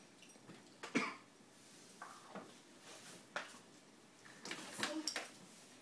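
A handful of short clicks and knocks as a toddler handles a high chair's seat and straps, the sharpest about a second in and a quick cluster near the end.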